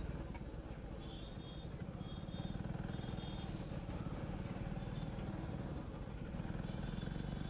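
Motorcycle engine running steadily at low road speed, heard from the rider's seat. A few short high-pitched beeps sound between about one and three and a half seconds in.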